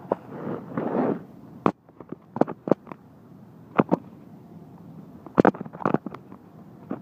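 Handling noise from a phone's microphone: rubbing in the first second, then a string of sharp knocks and clicks as the phone is moved and gripped.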